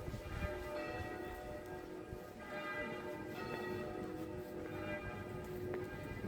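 Church bells pealing: several bells ringing together, fresh strokes coming every second or so and overlapping, each leaving a long ringing hum.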